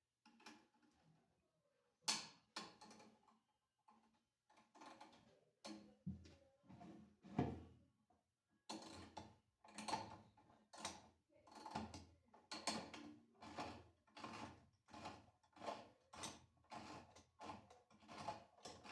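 Faint clicks and knocks of tools and plastic parts being worked on a Kenmore washer's agitator. About halfway through these settle into a steady run of short clicks at about two a second.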